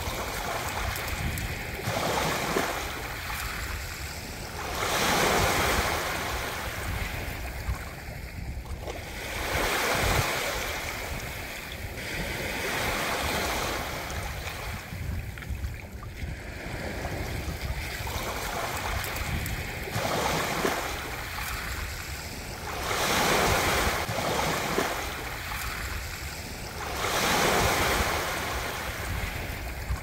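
Ocean waves breaking in a steady rhythm: a surge of surf rises and fades every three to five seconds over a continuous low rumble of the sea.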